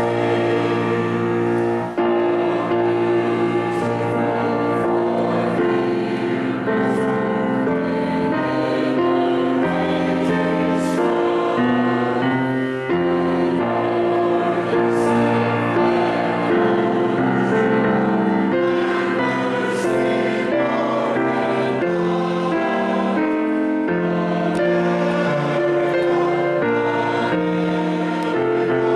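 Voices singing a hymn together with keyboard accompaniment, in slow, held chords.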